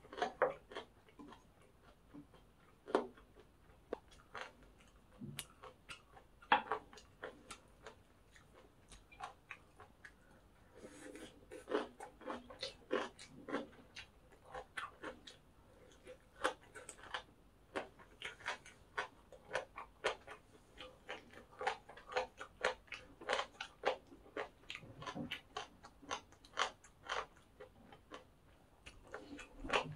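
Close-up chewing of crunchy pork cartilage fried rice: crisp, rapid crunches, sparse at first and almost continuous from about eleven seconds in.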